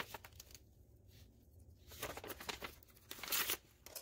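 Rustling and crinkling of a white mailing envelope as it is handled and opened, with a louder rustle about three and a half seconds in.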